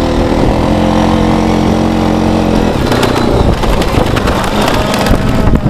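Honda four-wheeler (ATV) engine running, holding a steady note for the first two and a half seconds, then shifting in speed.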